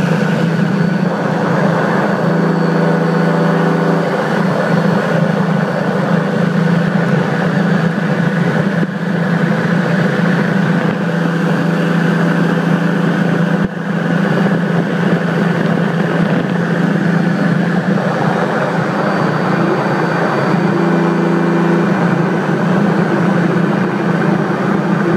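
Paramotor engine and propeller running steadily in flight, a constant droning note with dense wind and air rush over it.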